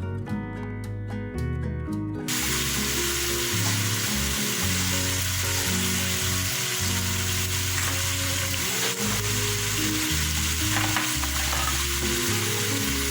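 Food frying in hot coconut oil in a pot: a steady loud sizzle that starts suddenly about two seconds in, over background guitar music.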